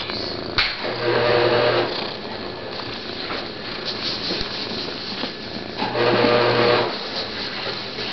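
Domestic tabby cat purring close to the microphone. The purr swells louder twice, for about a second each time: about a second in and again around six seconds.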